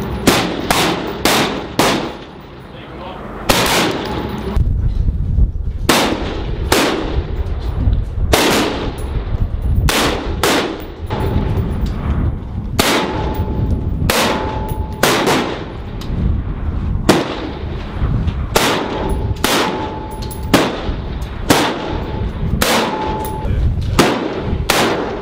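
M27 Infantry Automatic Rifles (5.56 mm) firing single aimed shots at an uneven pace, about one a second, with one lull, each shot followed by an echo. A brief ringing tone follows some of the shots.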